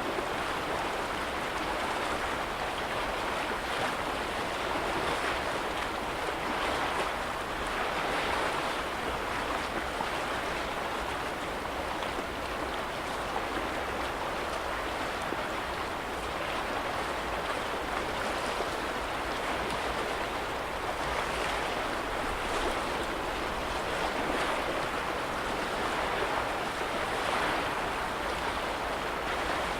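Small waves on a lake washing against the shore: a steady wash of water that swells gently every few seconds.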